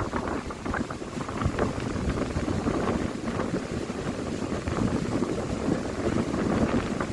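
Wind buffeting the microphone: a steady, rumbling rush, with the sea's surf washing underneath it.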